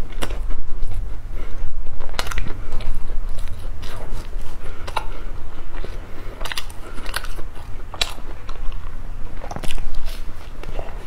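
Close-miked biting and chewing of sachima, fried-dough puff bars topped with pumpkin seeds and sesame, with sharp, irregular crunches scattered throughout.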